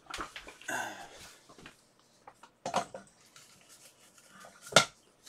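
Handling and rummaging noises: scattered rustling and light clatter, with one sharp click or knock near the end, the loudest sound.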